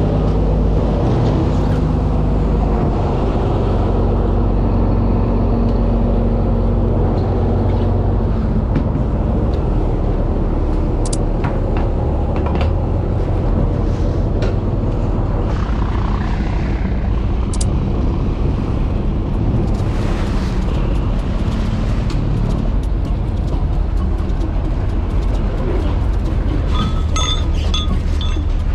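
An engine running steadily, a low drone with scattered light clicks and knocks.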